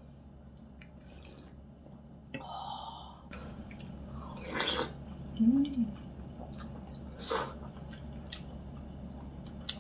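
A person slurping a spoonful of chicken-broth rice soup and chewing it, with a few short wet mouth sounds and a brief hum partway through.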